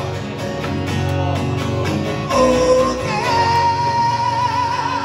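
Live acoustic guitar and singing from a small duo at microphones; the singer holds one long note over the last two seconds.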